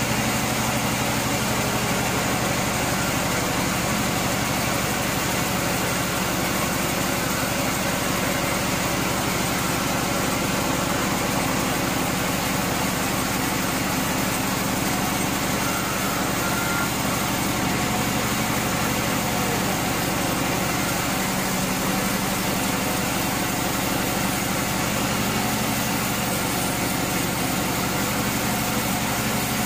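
Large band sawmill running steadily as its blade rips lengthwise through a knotty, burl-covered log: a continuous machine hum with sawing noise, unchanging throughout.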